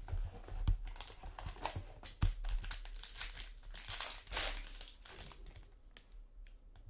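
Crinkling and tearing of a trading-card pack's foil wrapper with small clicks of card stock, as a Panini Contenders Optic Football hobby box is opened and its pack ripped open, busiest in the middle.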